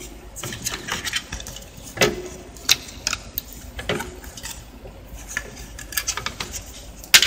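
Irregular clicks, taps and knocks of a Toshiba Satellite C660 laptop motherboard being lifted out of its plastic base and shifted around the chassis, with a sharp knock near the end the loudest.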